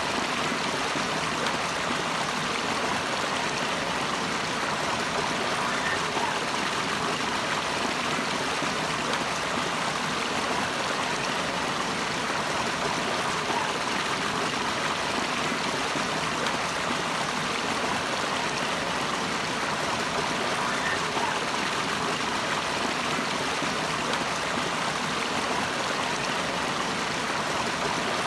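Running water rushing steadily, an even, unbroken rush with no pauses or separate splashes.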